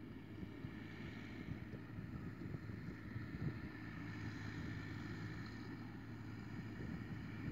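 Distant tractor engine running steadily as the tractor drives across a sandy field, with wind buffeting the microphone.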